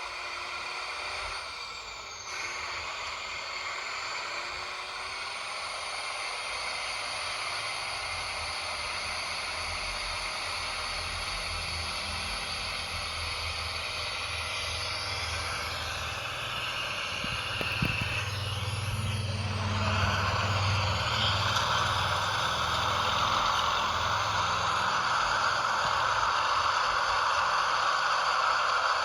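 Toy RC truck driving: its small electric motor and gearbox whirring steadily with some rattle. The sound gets louder and brighter about two-thirds of the way through.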